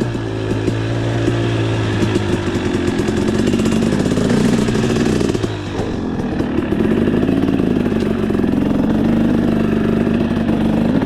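KTM 300 EXC two-stroke dirt bike engine with a Pro Circuit R304 exhaust being ridden on a trail, its pitch rising and falling with the throttle. The revs drop briefly about halfway through, then climb again.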